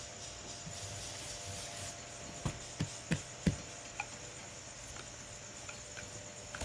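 Kitchen handling noise: soft rubbing and scraping, with four or five dull knocks in quick succession near the middle.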